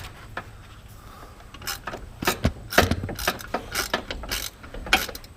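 Metal hand tools clicking and clanking against a steel exhaust spring and pipe while the spring is being stretched into place: quiet for about the first second and a half, then a run of irregular clicks and clanks.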